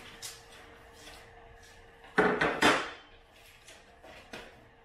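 A metal table-leg frame set down on a workbench with a clatter of two or three sharp knocks about two seconds in, with faint paper handling around it.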